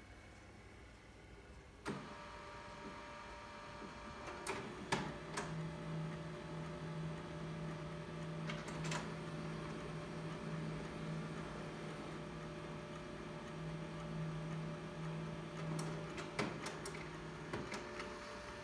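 HP multifunction printer running a copy job. It starts up with a click about two seconds in, then its motors hum steadily for about twelve seconds, broken by several sharp clicks, and the hum stops near the end.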